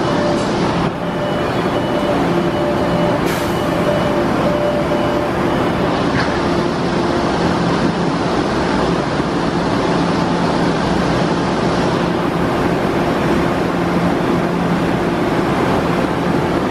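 MBTA Orange Line 01400-series subway car standing at the platform, giving a steady hum with several held tones. Its doors slide shut in the first few seconds, with one brief knock about three seconds in.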